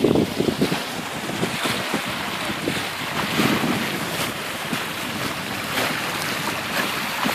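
Bow wave of a wooden gaff-rigged cutter under sail at about five knots, water rushing and splashing along the hull in uneven surges. Wind buffets the microphone.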